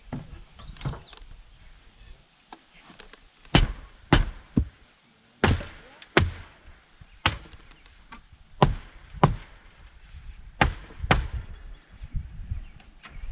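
Hammer blows on wood: about ten sharp, irregular strikes, often in pairs.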